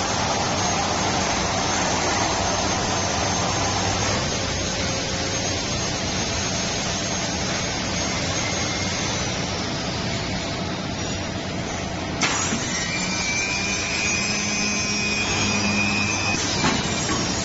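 Roller-blind fabric cutting machine running, a steady mechanical whirring hiss. About 12 seconds in there is a sharp click, followed by a higher motor whine for a few seconds.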